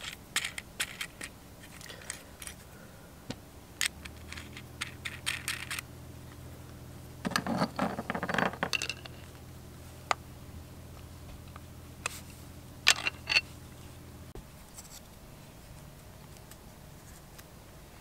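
Small metal clicks and clinks of a stainless steel U-bolt and its backing plate being handled against a teak block, with a denser spell of rustling handling noise a little before the middle. A low steady hum sits underneath from about four seconds in until about fourteen seconds in.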